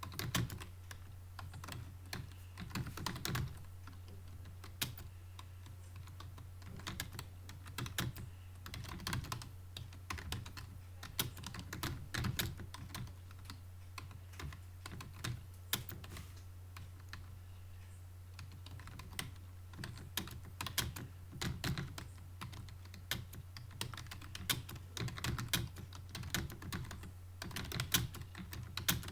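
Computer keyboard keys being typed in quick, uneven bursts with short lulls, over a steady low hum. This is touch-typing during a timed typing-speed test.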